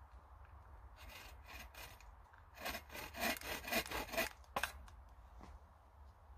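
Folding bow saw cutting a small log, in quick back-and-forth strokes. A few light strokes start about a second in, then a louder run of rapid strokes follows, and the sawing stops about five seconds in.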